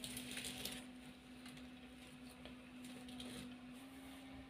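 Faint steady hum from a switched-on homemade battery charger with a toroidal transformer and cooling fan, with a brief soft rustle of handling in the first second and a few faint ticks.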